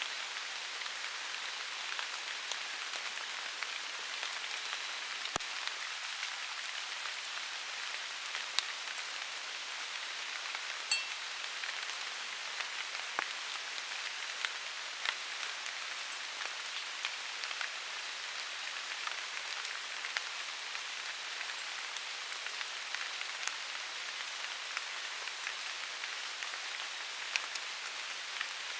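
Water drops pattering steadily on forest leaves after rain, with scattered sharper single drips. A brief high squeak sounds about eleven seconds in.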